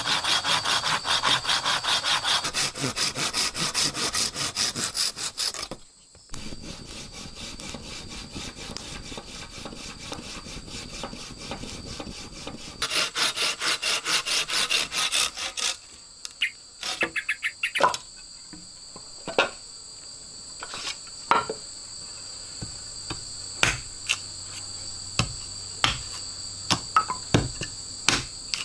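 Hand saw cutting wood in quick, even back-and-forth strokes, louder at the start and again for a few seconds in the middle. After that come separate sharp knocks on wood over a steady high drone of insects.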